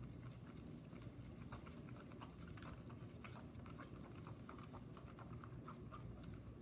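Wooden craft stick stirring glue and gel food colouring in a plastic tub: faint, irregular small clicks and taps of the stick against the container.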